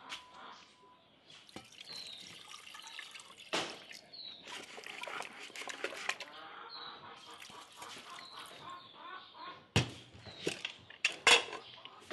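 Liquid pouring and trickling into an aluminium pressure cooker over seasoned meat, followed near the end by a few sharp metal clinks as the cooker's lid is fitted.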